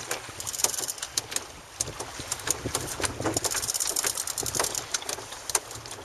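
Spinning reel being wound in on a fishing rod: a run of sharp, irregular clicks, several a second, over a steady low rumble of wind and sea.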